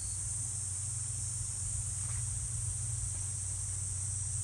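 Steady, high-pitched insect buzzing in a continuous chorus, over a low steady rumble.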